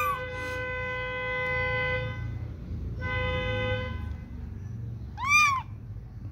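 A very young kitten mews: a high call that rises and falls, the end of one right at the start and a louder one about five seconds in. Between the mews a horn honks twice with a steady tone, first for about two seconds, then for under a second.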